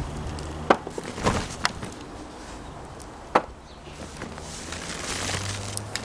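Freshly dug potatoes knocking as they are dropped into a plastic tray: four sharp knocks in the first three and a half seconds, followed by a rustle of soil and the fabric grow sack near the end.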